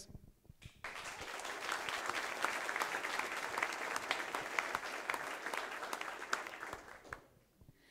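Audience applauding, starting just under a second in and dying away near the end.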